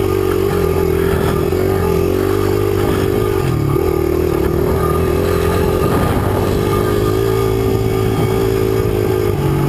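Engine of a 2005 Honda 100 cc trail bike, a small air-cooled single-cylinder four-stroke, running steadily at a slow trail pace, its pitch wavering slightly with the throttle.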